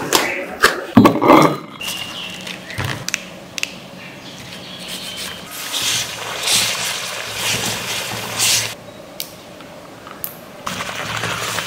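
Hand food-preparation sounds: banana flower bracts and florets being pulled apart, and a wooden spatula stirring chopped garlic in oil in a metal pan. A few sharp clicks come in the first two seconds, then scraping and rustling that swells several times.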